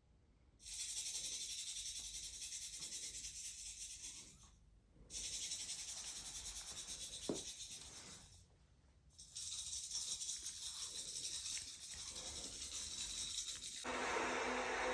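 A high hissing rattle played as a sound effect in three long bursts of about three to four seconds each, with short breaks between. Music starts near the end.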